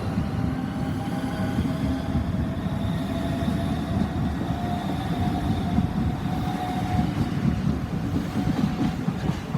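Class 319 electric multiple unit running through the station: a steady low rumble of wheels on rail with a faint whine.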